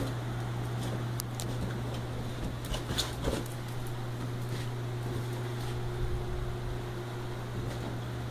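A small dog playing with a rubber balloon on a tiled floor: a few scattered light taps and knocks from claws and the bouncing balloon, the loudest about three seconds in, over a steady low hum.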